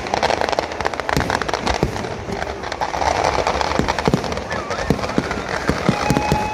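Fireworks barrage: aerial shells launching and bursting overhead in rapid succession. It makes a dense, unbroken run of bangs and crackling.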